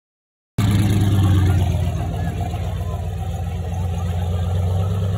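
Square-body GM pickup truck's engine running loud at steady, held revs, cutting in suddenly about half a second in.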